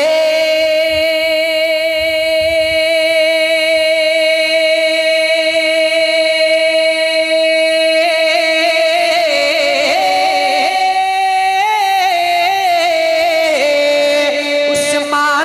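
A male naat reciter holding one long sung note as he draws out the name 'Usman' in an Urdu naat. The note stays steady for about eight seconds, then wavers, rises for a couple of seconds and settles back to its first pitch.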